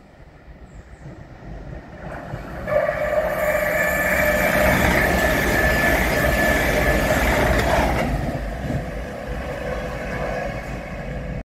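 Lumo Class 803 electric multiple-unit train passing through the station at speed: a rushing rail noise with a steady high whine that builds over the first couple of seconds, stays loud for about five seconds, then fades as it draws away.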